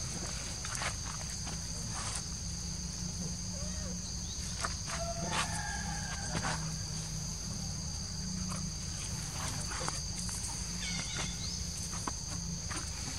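Steady, high-pitched drone of insects calling in forest, with scattered small rustles and clicks. A brief tonal animal call comes about five seconds in.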